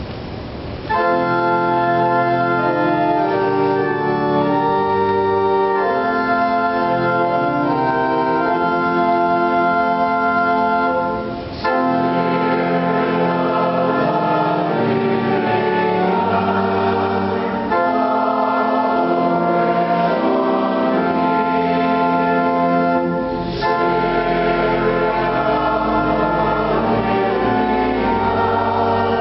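Organ playing sustained chords in long phrases, the music breaking off briefly about 11 and 23 seconds in.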